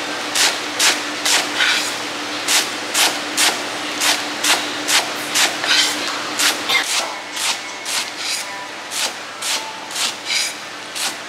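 Chinese cleaver chopping a bundle of garlic chives on a round wooden chopping block, in a steady rhythm of about two chops a second.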